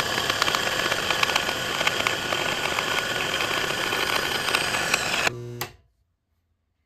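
Treadmill-motor-driven metal-cutting bandsaw cutting through a 3/8-inch steel bar, sped up as a time-lapse: a dense rasping noise full of rapid clicks. It cuts off abruptly about five and a half seconds in.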